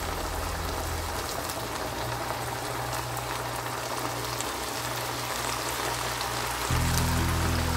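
Minced-meat and tomato sauce simmering in a pan: a steady bubbling hiss.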